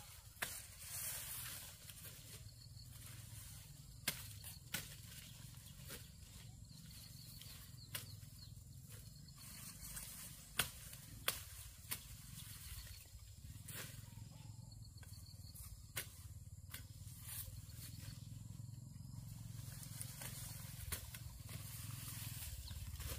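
Irregular sharp knocks or cracks, one every second or few seconds, with two loudest close together near the middle, over a low steady rumble.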